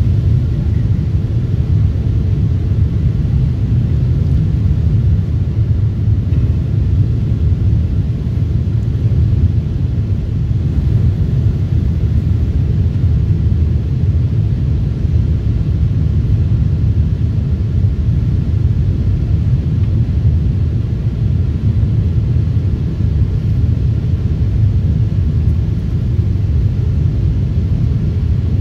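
Steady low rumble of engine and airflow noise inside the cabin of a Boeing 747-8 airliner in flight, descending toward landing.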